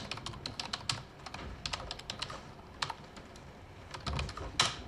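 Typing on a computer keyboard: quick runs of keystrokes with short pauses between them, and one harder keystroke near the end.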